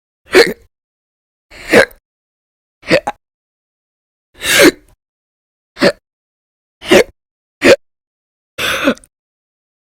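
A woman hiccuping loudly and repeatedly: eight short, sharp hics about a second apart, the one near the end longer and breathier. These are involuntary diaphragm spasms in a persistent bout of hiccups.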